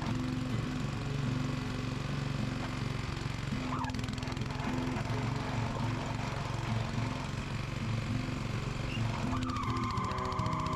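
A small petrol engine running steadily under background music.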